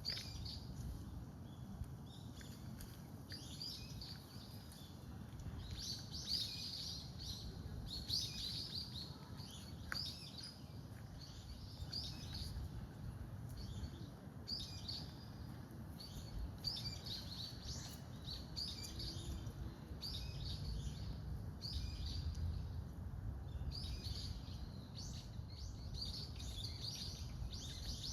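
Small birds chirping in clusters of short, high notes that recur every second or two, over a steady low rumble.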